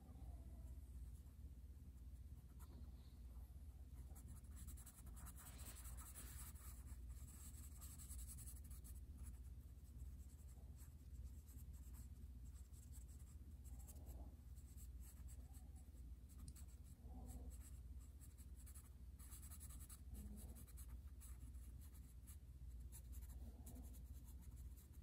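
Charcoal pencil scribbling on drawing paper: faint, rapid scratching that comes and goes with the strokes, busiest a few seconds in and again later on. A low steady hum lies underneath.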